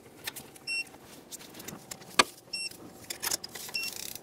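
Digital torque wrench giving three short, high beeps, about a second or two apart, as it signals the set torque of 100 inch-pounds on the fuel-rail mounting bolts. Sharp clicks and knocks of the wrench working on the bolts come between the beeps.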